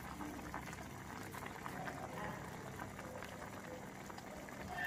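A pot of kimchi soup bubbling at a low simmer, with many small bubble pops.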